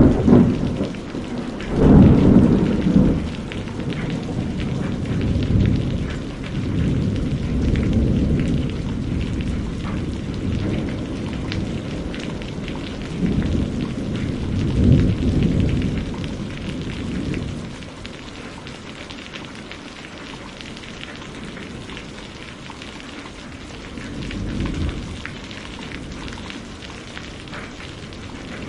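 Heavy rain falling steadily, with rolls of thunder rumbling underneath: a loud peal about two seconds in, more around the middle, and a fainter roll near the end.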